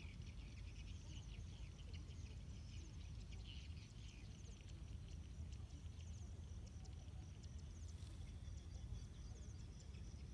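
Faint outdoor field ambience: small birds and insects chirping and ticking high up, over a low rumble of wind on the microphone.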